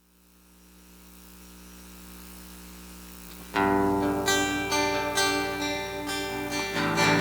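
A steady low hum fades in, then about three and a half seconds in a guitar starts strumming chords, the opening of the song before the vocals.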